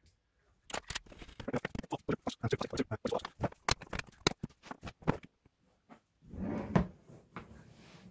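Hard plastic rifle case being handled on a table and its latches worked open: a quick run of sharp plastic clicks and knocks, then a louder clack near the end.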